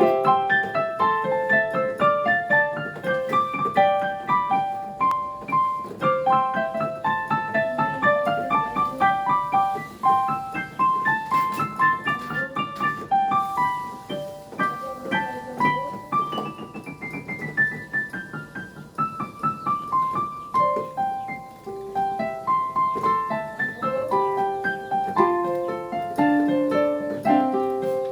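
Piano playing Christmas music: a busy melody of quick, separate notes over lower chords, with a long descending run of notes about halfway through.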